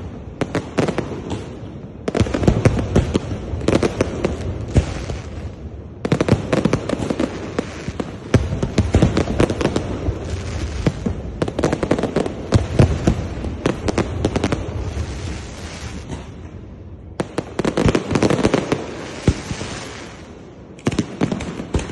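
Aerial fireworks display: rapid, dense bangs and crackles from bursting shells, coming in several barrages with brief lulls between them.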